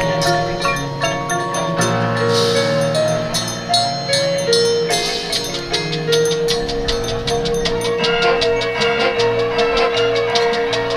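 High school marching band playing its field show, with marimba and xylophone notes prominent over sustained band chords. Two crashes come in the first half, and a long note is held from about six seconds in.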